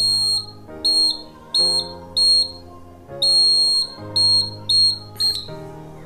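Piezo buzzer of a laser-beam security alarm giving about eight short, high-pitched beeps of uneven length, stopping about five and a half seconds in. It sounds while the laser beam to the light sensor is blocked, the alarm being triggered. Background music plays underneath.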